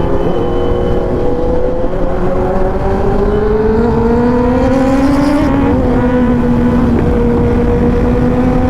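Kawasaki Ninja ZX10R inline-four with an SC Project full-system exhaust, ridden under light throttle over a constant low wind rumble. The engine note climbs slowly for about six seconds, eases off slightly and then holds steady.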